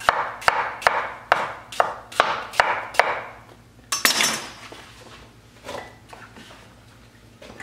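Chef's knife slicing peeled apples on a wooden cutting board, the blade knocking the board about twice a second for three seconds. About four seconds in, the apple pieces are swept across the board by hand.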